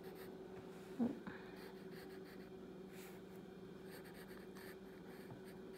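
Pencil sketching on paper: faint scratching strokes of the graphite over a steady low hum, with one brief low sound about a second in.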